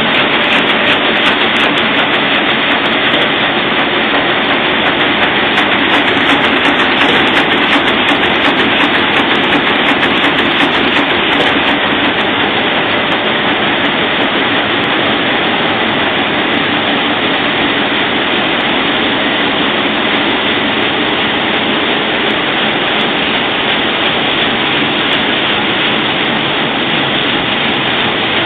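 A 1993 Roland 706 six-colour sheet-fed offset printing press running: a loud, steady mechanical din.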